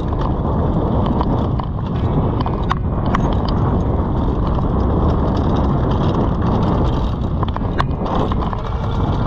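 Mountain bike riding along a dirt trail: a steady low rumble of tyres and air, with scattered sharp clicks and rattles from the bike.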